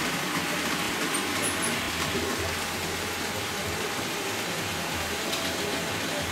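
Model electric locomotive of the old German type (Altbau E-Lok) with its passenger coaches running along the layout's track: a steady whir and rumble of the small motor and rolling wheels.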